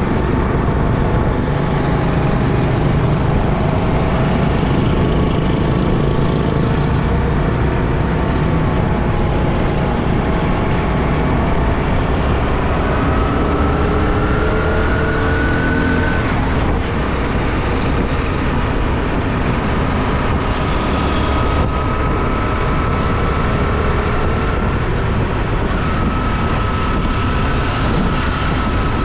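Motorbike riding in city traffic: steady engine and road noise with a heavy low rumble, and an engine tone rising in pitch for a few seconds about halfway through.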